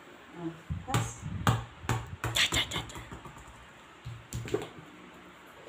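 Basketball bouncing on a hard tiled floor: a quick run of thuds in the first three seconds, then a few more about four seconds in.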